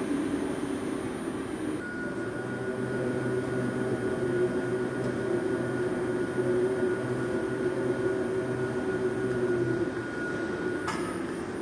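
WMW BMT 130 CNC horizontal boring machine running with its spindle turning: a steady mechanical hum. A thin high whine and a lower drone come in about two seconds in and stop near the end with a click.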